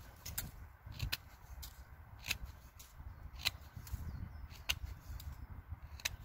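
Swiss Army knife blade whittling the end off a small green stick, a sharp click of the blade biting into the wood with each stroke, about one a second.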